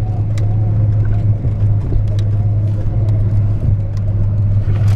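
Vehicle engine running with a steady low drone while driving slowly over a snowy track, heard from inside the cab, with scattered light clicks and knocks.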